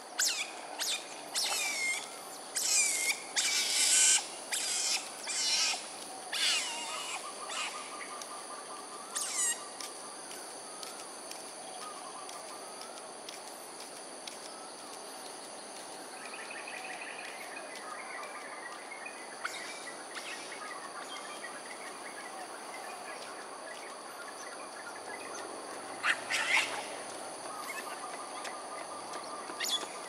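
A quick run of loud, high chirping calls that fall in pitch, through the first ten seconds and again briefly about 26 seconds in, with a quieter repeated trill in between. Under them runs a steady high insect drone.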